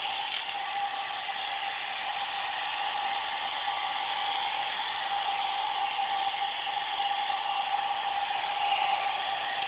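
Hair dryer running steadily: a constant whir with a steady mid-pitched hum.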